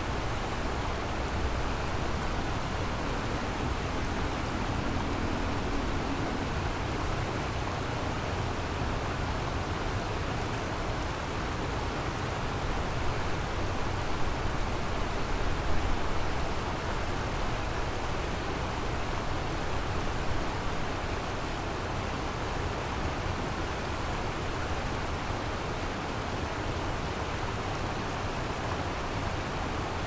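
Kamo River water flowing in a steady, even rush. A faint low hum rises above the water for a few seconds near the start.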